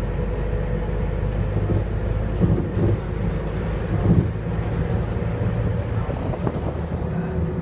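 Scania K230UB city bus's diesel engine and drivetrain running as the bus drives, heard from inside the passenger cabin. There are a couple of louder knocks about two and a half and four seconds in.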